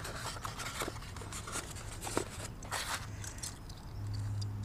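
Hard plastic packaging tray handled and bar-end mirrors pried out of it: scattered light clicks, crackles and scrapes. A low steady hum comes in near the end.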